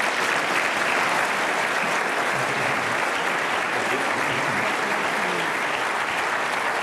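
A large audience applauding steadily, a dense even clapping that holds at one level.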